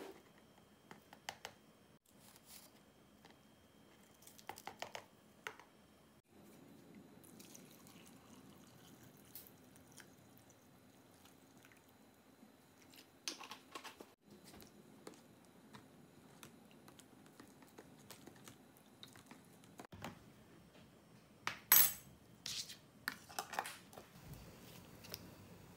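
Faint kitchen handling sounds: light clicks of a measuring spoon and jar, then a steady low pour of liquid from a plastic bottle into a plastic tub. The loudest sounds come near the end, a few sharp plastic clicks and snaps as the lid is pressed onto the tub.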